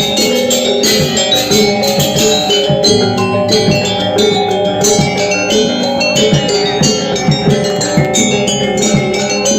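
Balinese gamelan music: bronze metallophones struck in a dense, steady stream of quick ringing notes.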